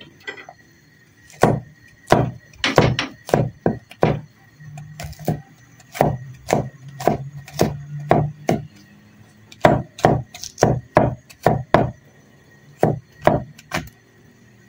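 Large kitchen knife chopping garlic cloves on a wooden cutting board: a series of sharp knocks of the blade on the wood, in uneven runs broken by short pauses.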